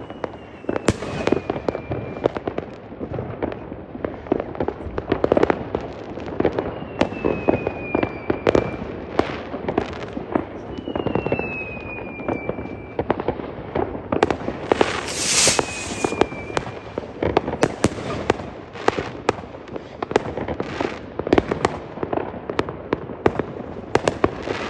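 Fireworks going off in a dense, continuous barrage of bangs and crackles. Several whistling rockets glide down in pitch, and a loud hissing burst comes about fifteen seconds in.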